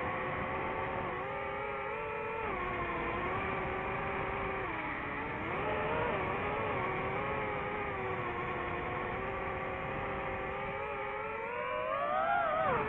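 DJI FPV drone's electric motors and propellers whining steadily, the pitch shifting with the throttle: it dips about five seconds in and climbs sharply near the end as the drone speeds up.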